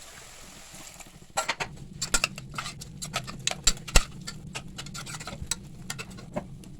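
A quick, irregular run of light clicks and taps starting about a second in, over a low steady hum.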